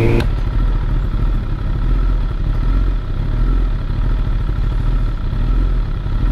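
Kawasaki ZX-10R inline-four motorcycle engine under way: its rising engine note cuts off abruptly just after the start, leaving a steady low rumble with road and wind noise.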